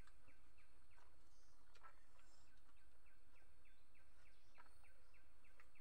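Quiet rural background with an even run of short, high chirps repeating about three or four times a second, from a small wild creature.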